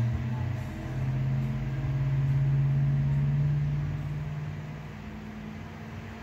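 A low engine-like hum that swells and then fades away about five seconds in.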